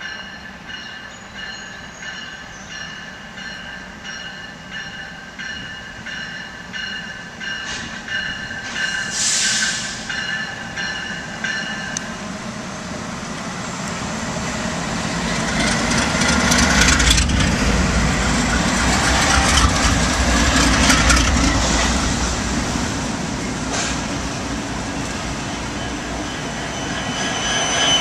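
Norfolk Southern diesel freight locomotives approaching and passing directly underneath, their engine rumble building from about halfway and loudest as the lead units go under, with a second swell near the end. Thin, steady high tones ring over the first part.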